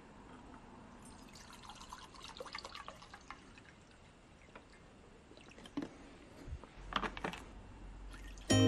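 Paraffin lamp oil trickling from a plastic bottle into a small stainless steel cup for a couple of seconds, followed by a few knocks as the metal cup and funnel are handled. Music starts just before the end.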